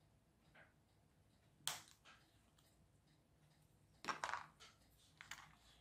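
Quiet sharp clicks from small plastic kit parts being trimmed and handled. One crisp click about a second and a half in, then a quick cluster of clicks around four seconds in and a single one near the end.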